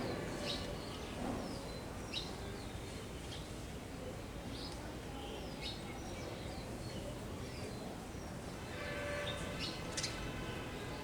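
Sparrows chirping: short, sharp falling chirps, scattered about one a second and thicker near the end, over steady outdoor background noise.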